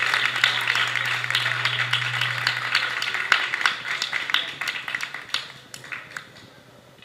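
Applause that thins out to a few scattered claps as it fades away.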